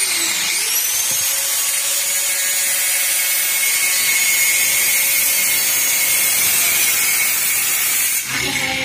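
Black+Decker angle grinder switched on, its whine sweeping up as the disc spins up, then running steadily at full speed with a high whine and a harsh hiss. It winds down about eight seconds in.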